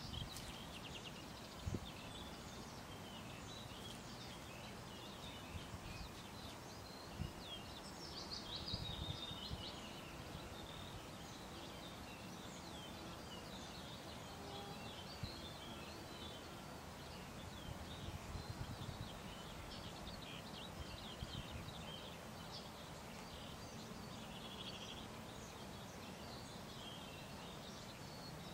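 Small songbirds chirping and singing in the background over a faint steady outdoor hiss, busiest about a third of the way in, with now and then a soft low knock.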